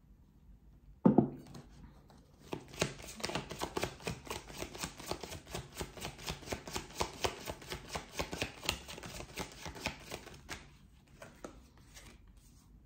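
A single knock on the tabletop about a second in, then a tarot deck shuffled hand over hand: a fast, even run of papery card snaps and flicks for about eight seconds, trailing off into a few soft taps.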